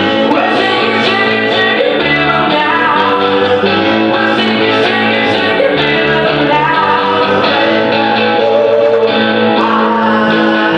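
Live rock band playing: a man sings into a microphone over electric guitars and a beat.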